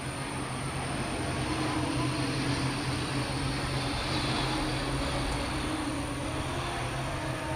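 Sukhoi Su-30 fighter's twin AL-31F turbofan engines at approach power as it flies low over the runway to land: a steady jet roar with a low rumble, growing a little louder a second or so in.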